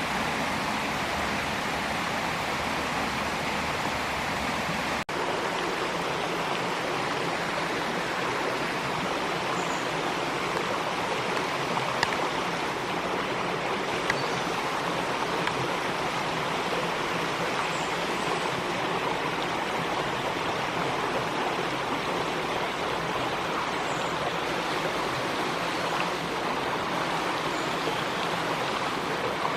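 Small stream flowing steadily, a constant rush of water, with a momentary dropout about five seconds in.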